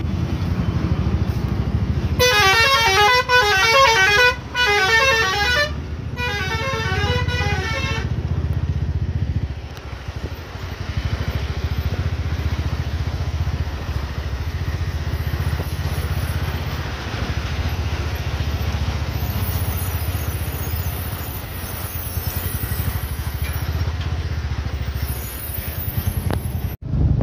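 A vehicle horn sounding in a fast warbling, pulsing pattern for about six seconds, starting about two seconds in with two short breaks, over the steady running of a motorcycle engine and traffic noise on a highway.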